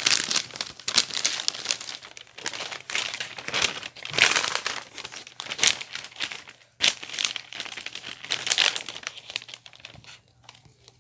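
Wrapping paper being handled and folded, crinkling and rustling in irregular bursts that die down near the end.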